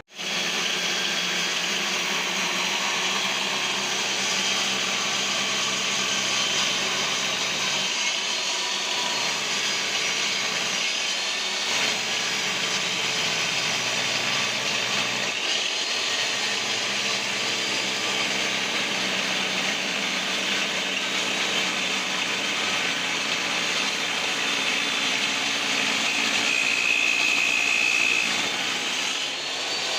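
Powered wood saw machine starting up and running steadily, with a constant whirring hum; it gets slightly louder near the end, with a brief high whine.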